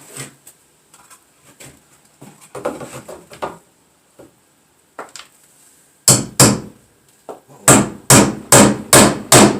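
Hammer driving nails to fix an electrical outlet box in place, with a few light handling knocks first, then two sharp strikes and a steady run of strikes about two or three a second.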